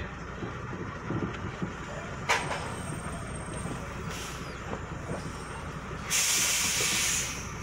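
Truck engine running low and steady, with a click a couple of seconds in and a brief hiss, then a loud burst of air hiss about a second and a half long near the end: the truck's air brakes venting as it stops.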